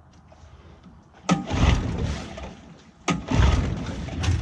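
15 hp Johnson outboard motor being pull-started with the choke on: two yanks of the starter cord, about a second in and again about three seconds in. Each turns the engine over for about a second without it catching.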